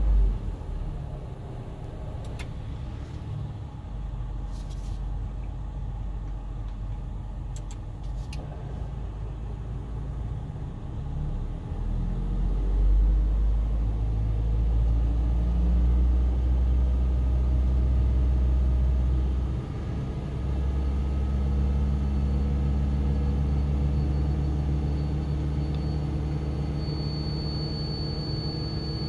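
Toyota Tercel running with the air conditioning on: a steady low hum that gets louder about twelve seconds in and dips briefly near twenty seconds. A thin high whine comes in near the end. This is the car's abnormal A/C noise being reproduced.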